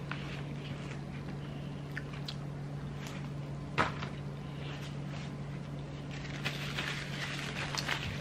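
Close-up chewing and mouth sounds of someone eating a chicken barbecue slider, over a steady low hum, with a sharp click about four seconds in. Paper crinkles for the last second or two.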